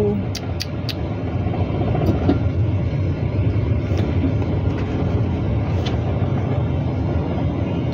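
Inside a moving car: a steady low rumble of engine and tyre noise, with a few faint clicks about half a second in.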